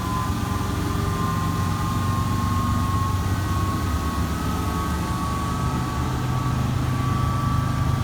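Washing machine on its spin cycle: a steady low hum of the drum and motor, with a thin motor whine that rises slowly in pitch.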